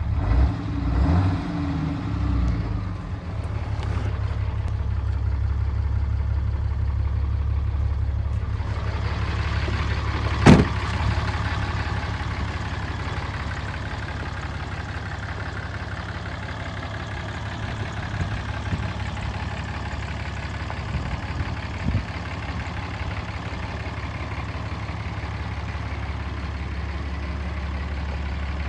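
2008 Dodge Ram 2500's 6.7 Cummins turbo-diesel inline-six idling steadily, a little uneven in the first few seconds. A single sharp bang cuts through about ten seconds in.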